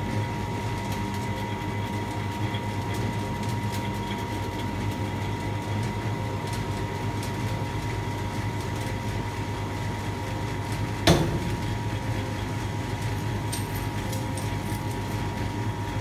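Hydraulic power unit of a 60-tonne tensile testing machine running with a steady hum and a thin steady tone. About eleven seconds in comes a single sharp bang as the steel test specimen fractures under tension.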